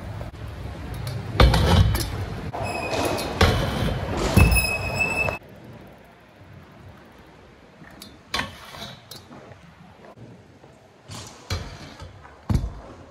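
Freestyle scooter riding: loud clattering knocks and ringing metallic clinks for the first few seconds, then quieter rolling. Near the end come a few sharp knocks as the scooter hits a metal rail, grinds it and lands.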